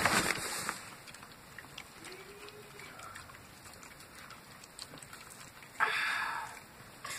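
Wet crackling and rustling as a newborn puppy is cleaned in the whelping basket, its mother licking at it and a hand working at its face. A faint short squeak comes about two and a half seconds in, and a louder breathy rush about six seconds in.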